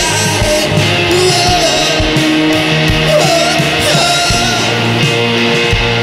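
A rock band playing live: electric guitars over bass and drums, with a lead line that bends in pitch about three seconds in.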